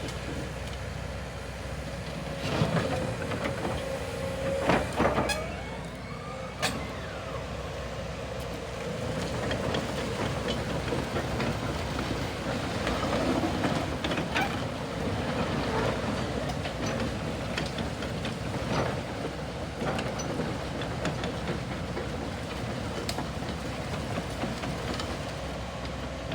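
Komatsu HB215LC-2 crawler excavator running and working, its engine and hydraulics making a steady mechanical noise. A few seconds in there is a cluster of sharp metal clanks and a brief squeal, with lighter knocks later on.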